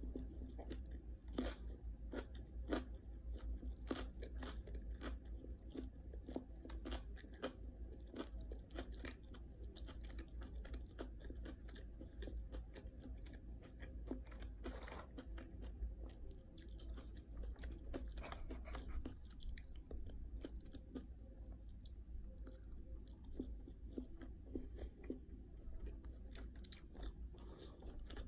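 Close-up chewing of crunchy food, mouth closed: a long run of quick crisp crunches that thin out toward the end.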